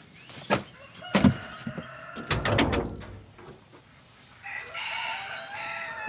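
A rooster crows once, one long call of about a second and a half near the end, after a knock and a clatter about a second and two and a half seconds in.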